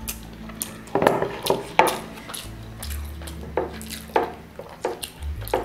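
Hands eating rice and chicken curry off plates: a string of short, irregular clicks and knocks as fingers scrape the plates and a plate is picked up and handled.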